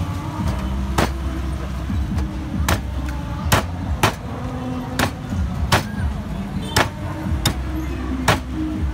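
Sharp knocks at uneven spacing, about one a second, over a steady low motor hum.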